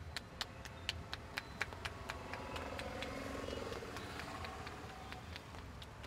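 Quick, sharp taps of a barber's hands striking the scalp in a percussive head massage, about three or four a second. A vehicle on the wet road swells and fades in the middle.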